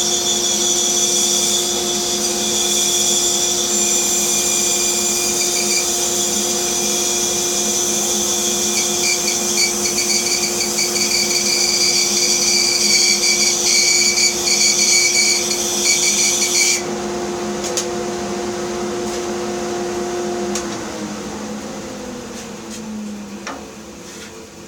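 Bandsaw running with its blade cutting through a wood block, a steady hum under a high hiss. The cutting sound stops abruptly about 17 seconds in, and a few seconds later the saw is switched off and its motor winds down, the hum falling in pitch.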